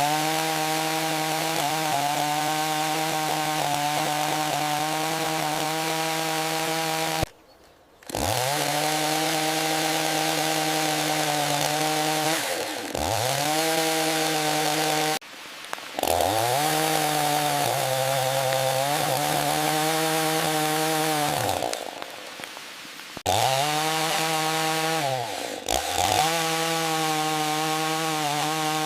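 Small chainsaw running and cutting wood at a steady high engine note. The pitch sags and picks back up several times, and the sound briefly cuts out or drops away about three times.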